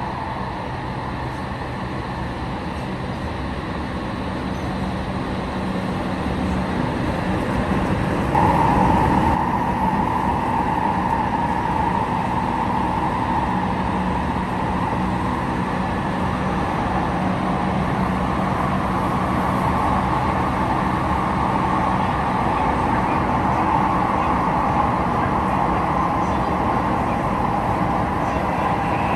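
Tokyu 3000 series electric train running, its TKM-98 traction motor giving off a steady tonal whine over wheel and track rumble. This is the unusual motor noise (異音) of this car type. About eight seconds in, a strong higher whine sets in abruptly and holds, wavering slightly.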